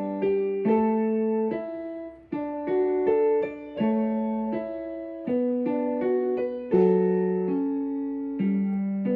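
Background music played on piano: soft chords and single notes struck about once a second, each ringing and fading before the next.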